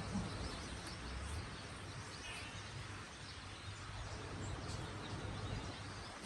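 Low, steady background noise with a faint short bird chirp a little over two seconds in.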